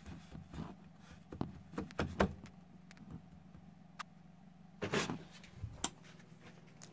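Scattered light knocks and clicks of handling as the phone is moved about, a little louder about five seconds in, over a low steady hum.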